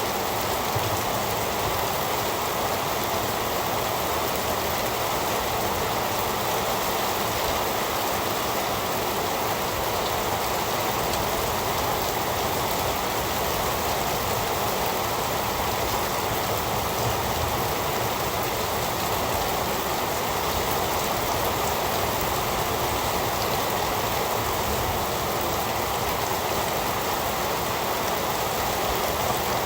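Heavy rain falling steadily, an even, dense hiss of drops with no let-up.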